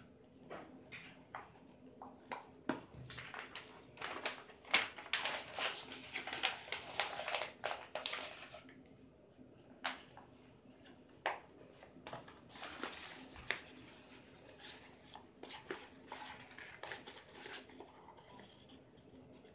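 Sheets of white paper rustling and crinkling as they are rolled into cones by hand: a quick run of crisp crackles for the first half, then sparser clicks and rustles.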